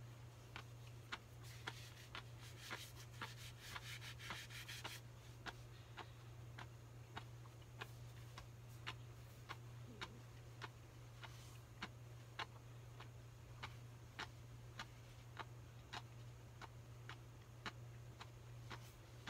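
Clock ticking steadily, about two ticks a second, over a low steady hum. A faint rustle runs for a few seconds near the start.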